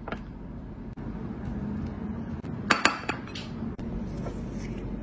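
Hard snail shells clinking against one another and the stone board as the giant land snails are handled. There are two sharp clicks close together about two and a half seconds in, then a softer one, over a steady low hum.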